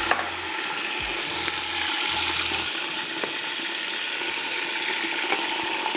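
Mutton pieces sizzling as they fry in hot ghee and oil with whole spices in a large pot, a steady hiss, with a couple of sharp knocks from the stirring spoon against the pot.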